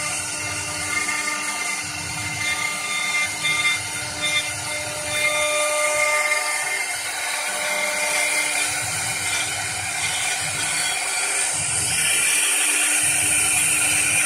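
CNC wood lathe turning and cutting a wooden spindle: a steady motor hum under the scraping, whining noise of the cutter shaving the spinning wood, its tones shifting as the tool moves along the workpiece.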